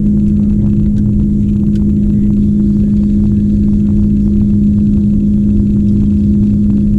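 Boat's outboard motor running steadily at speed: a constant hum over a low rumble.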